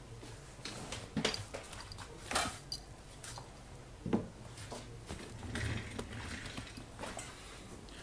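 Small parts being handled at a workbench: light taps, clicks and rustling, with a few sharper clicks about one, two and a half, and four seconds in.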